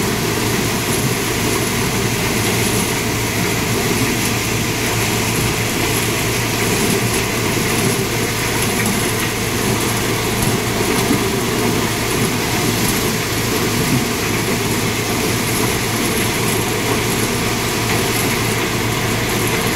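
Tractor-driven maize thresher running steadily: a loud, continuous machine noise over a constant low hum.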